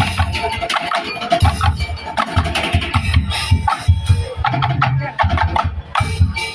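Tongtek percussion ensemble playing: fast, dense beating on kentongan wooden and bamboo slit drums over deep bass drum beats, with a few held melodic tones.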